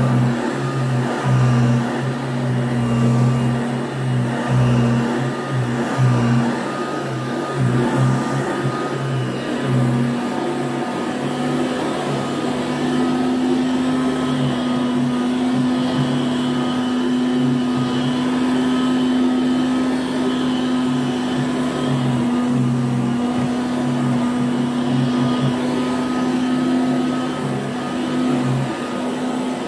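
1979 Goblin Housemaid GL888 upright vacuum cleaner running steadily while pushed back and forth over carpet. It gives a steady motor hum whose lower tones waver with the strokes.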